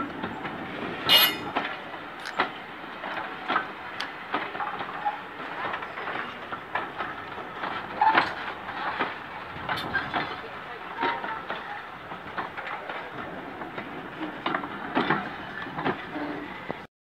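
British Rail Mark 1 passenger coaches rolling past at low speed, their wheels clicking irregularly over rail joints with a few brief squeaks. The sound cuts off abruptly near the end.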